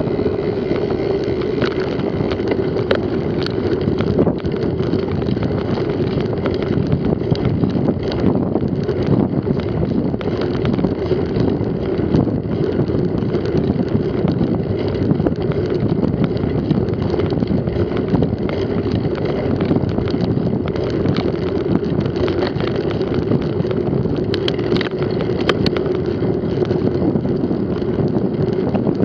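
Mountain bike ridden at speed: wind rushing over the camera microphone and steady tyre rumble on a dirt track, with scattered rattling clicks from the bike.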